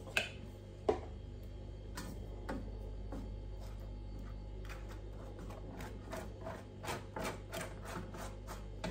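Small spatula spreading relish over naan bread: short scraping dabs that come two or three a second in the second half, after a couple of sharp clicks near the start. A steady low hum runs underneath.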